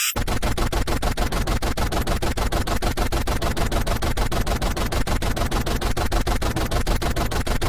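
Harsh electronic noise, a dense static cut into fast, even pulses, starting abruptly in place of gliding synthesizer tones.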